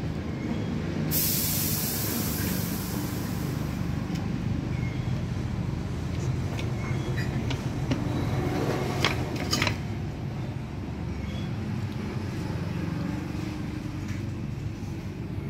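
A steady low rumble of a running engine in the background, with a loud hiss about a second in. A few sharp metal clicks come near the middle as the starter motor's steel parts are handled and fitted.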